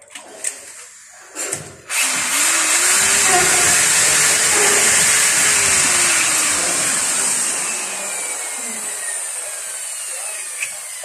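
Electric hand drill boring into the top of a window frame: after a few small clicks it starts about two seconds in and runs steadily and loudly, its pitch wavering under load, then eases off and sags in pitch over the last few seconds.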